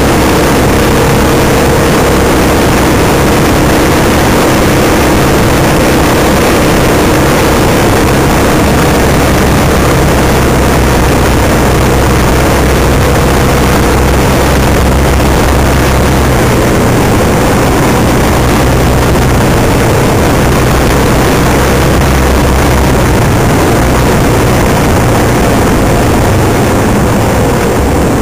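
Motorcycle engine running steadily while riding along a gravel road, under loud steady rushing wind noise on the microphone.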